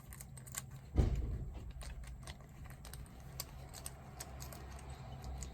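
Small metal padlock parts clicking and tapping as they are handled and worked into place inside a Mul-T-Lock NE10 padlock body, with one louder knock about a second in.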